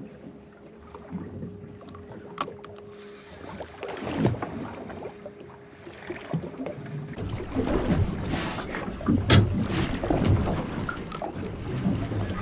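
Water slapping against a small boat's hull with wind buffeting the microphone, growing louder from about seven seconds in, with a few sharp knocks. A faint steady hum runs through the first few seconds.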